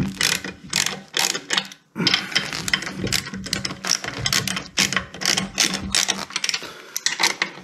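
Hand socket ratchet on an extension bar clicking rapidly in runs, with a brief pause about two seconds in, as it runs tapered wheel nuts down the studs to centre a steel wheel.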